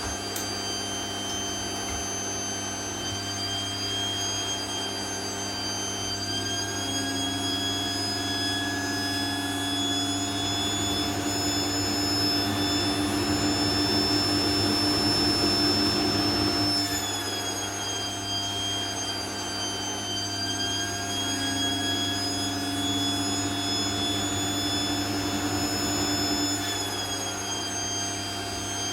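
Vacuum cleaner running continuously, its motor whine rising in pitch a few times and dropping back. It is loudest and highest between about twelve and sixteen seconds in, then falls back suddenly.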